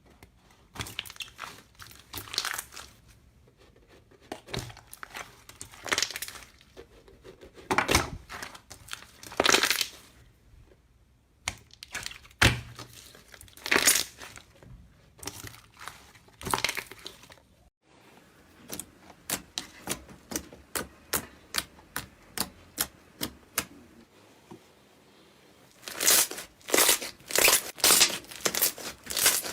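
Slime being pressed and squished, in irregular short squelches and pops. A little past halfway it changes to a run of short, even clicks about three a second, then louder squishes near the end.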